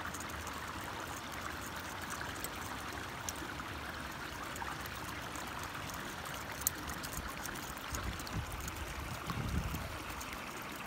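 Deps NZ Crawler Jr. topwater lure crawling across the surface on the retrieve, its wings paddling the water in a steady splashing gurgle, with faint ticks and a few low bumps near the end.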